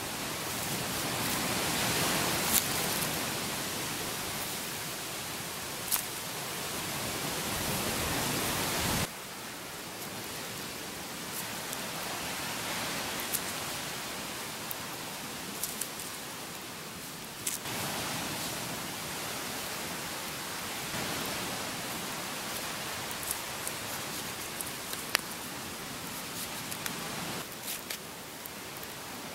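Steady rushing noise that swells and fades, with scattered sharp crackles from a wood and coconut-husk campfire. The noise drops abruptly about nine seconds in.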